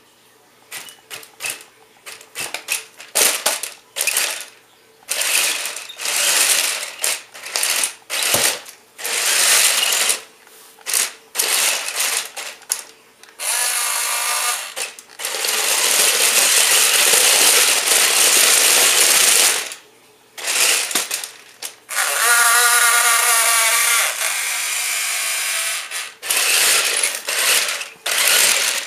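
Tyco Monster Traxx RC tank's electric motors and plastic gearboxes running on the high speed setting, first in many short on-off bursts, then in two long runs of several seconds each with a whine at their start.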